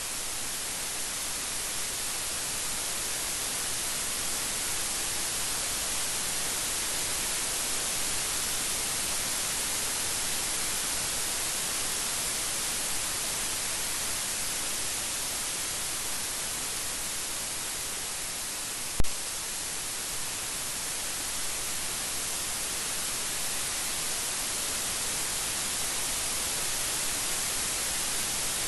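Steady rain falling, an even hiss without thunder; a single sharp click sounds about nineteen seconds in.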